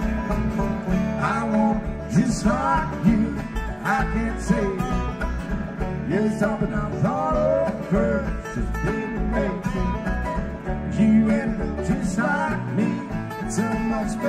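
Live bluegrass band playing an instrumental passage: banjo picking with acoustic guitar, mandolin and upright bass, and a lead line of notes sliding up and down in pitch.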